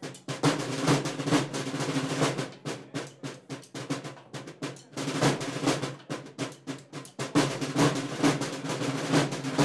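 Percussion-led music: fast drum rolls and rapid strikes, a little quieter for a moment near the middle.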